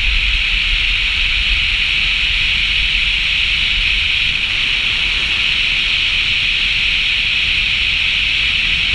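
Steady rush of road and wind noise from a car driving at speed on hard-packed snow and gravel: an even hiss over a low rumble, with no change in pace.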